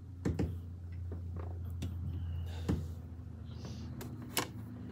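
Low, steady engine hum of vehicles, a car and a pickup truck, driving past on the road. Several short, sharp clicks and taps sound close to the microphone over it.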